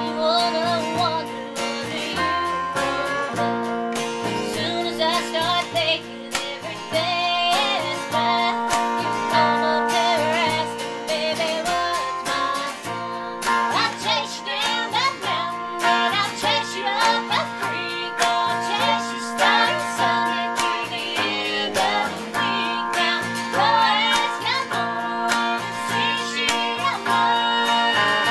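A woman singing a country song live, accompanying herself on acoustic guitar, with a second guitarist playing electric guitar through a small amp.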